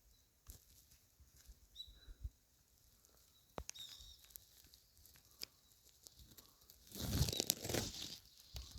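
Rustling and crackling with scattered small clicks, swelling into a louder burst of rustling for about a second near the end.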